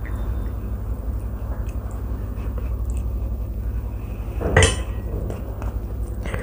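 A small stainless steel bowl set down with one sharp clink and a brief ring, a little past halfway, after dal has been poured from it onto rice. Faint handling sounds and a steady low hum underneath.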